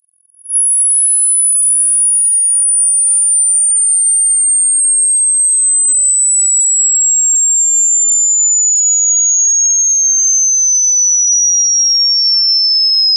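Hearing-test tone for high-frequency hearing: a single pure sine tone that fades in about half a second in, then falls slowly and steadily from a very high pitch to a lower but still high one.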